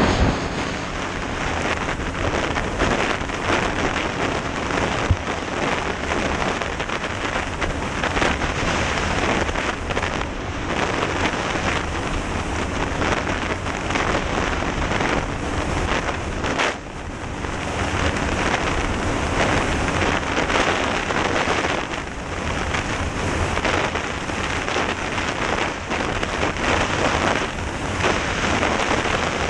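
Heavy wind rushing over a helmet-mounted camera's microphone while riding at speed, with the quad's engine faint beneath it. The rush dips briefly a little past halfway, then comes back.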